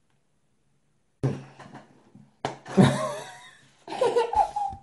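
Two sharp knocks about a second apart: a granadilla's hard shell being struck to crack it open. A few faint clicks follow the first knock, and laughter comes after the second.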